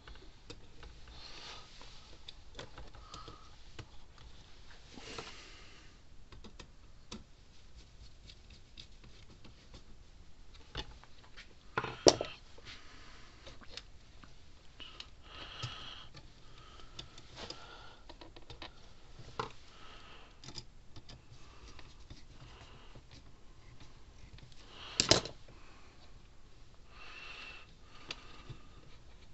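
Small handling noises as hands work wires and parts inside an open plastic fence-charger case: scattered light clicks, taps and rustles, with two louder sharp clicks about twelve seconds in and again about twenty-five seconds in.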